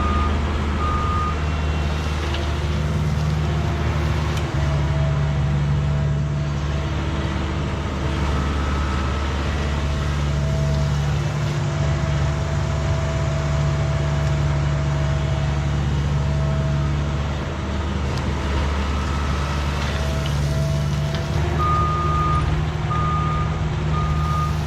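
Diesel engine of compact construction equipment running steadily under work. A backup alarm beeps in short, evenly spaced beeps near the start and again near the end as the machine reverses.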